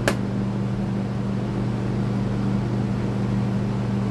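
Steady hum of running electric fans, with a single short click just after the start.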